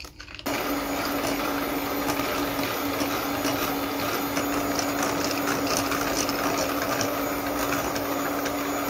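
Electric beater switching on about half a second in and running steadily at one speed, a constant motor hum, whipping butter, icing sugar and coffee into buttercream frosting.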